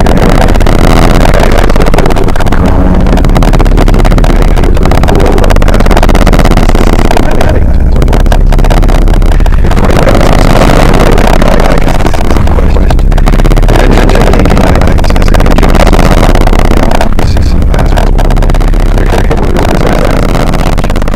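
Harsh noise / power electronics: a dense, heavily distorted wall of noise at full loudness with a heavy low rumble under it. It begins to fade near the end.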